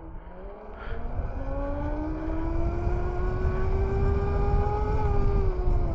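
The 3000 W hub motor of an electric dirt bike whining under acceleration, its pitch climbing steadily for several seconds, then dropping as it eases off near the end, over a low rumble of wind on the microphone.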